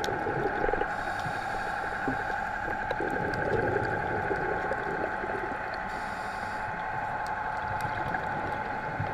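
Underwater sound through a GoPro housing: a scuba diver's regulator exhaust bubbles gurgling in bursts, near the start and again about three to four seconds in, over a steady hum.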